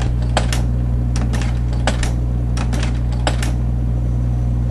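Singer Caramate II SP slide projector changing slides: a run of sharp, irregular mechanical clicks and clacks from the slide-change mechanism over the steady hum of the projector's motor.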